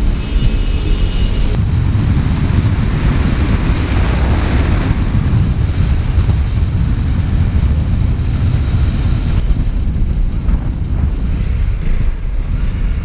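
Steady wind rush on the microphone of a KTM Duke 390 motorcycle riding at highway speed, strongest at the low end, with the bike's running and road noise blended into it.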